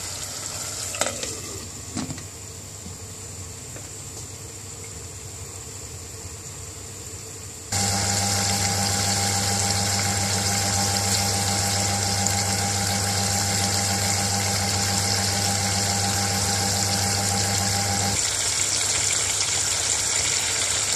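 Chicken curry simmering quietly in a stainless saucepan, with two short knocks about one and two seconds in. About eight seconds in, a loud steady rush of running water from a tap starts suddenly. It comes with a low hum that cuts off about ten seconds later, while the rush goes on.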